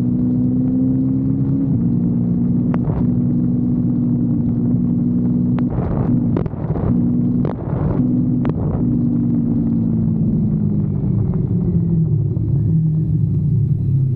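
Kawasaki Versys-X 250's parallel-twin engine running steadily under way. Around the middle the note breaks off briefly several times, with sharp clicks, and over the last few seconds it falls steadily in pitch as the bike slows.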